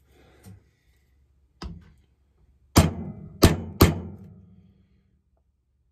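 Hammer strikes on a hole punch, punching a quarter-inch hole out of an old gasket: one lighter blow about a second and a half in, then three hard blows in quick succession, each ringing briefly.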